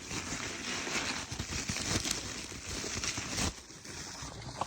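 Packaging rustling and crinkling as smoke alarm units are handled in their box, a continuous rustle broken by scattered small clicks and knocks of plastic.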